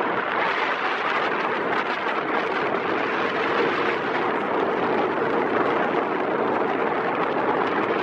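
Strong wind rushing steadily over the pier, a loud even roar of noise.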